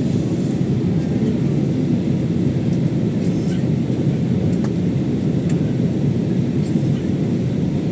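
Steady low drone of an airliner cabin during descent: engine and airflow noise holding at a constant level.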